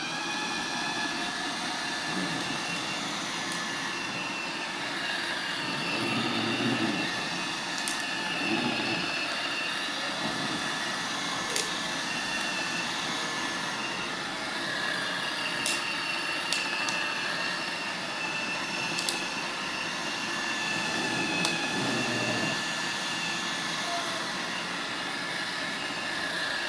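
Roomba robot vacuum running: a steady whirring with several high whining tones from its motors and brushes, with a few faint ticks now and then.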